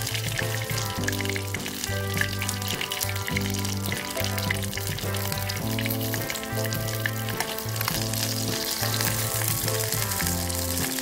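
Atka mackerel fillet frying in hot oil in a pan, a steady sizzle with fine crackles, fried until the skin starts to char. Background music with a bass line plays over it.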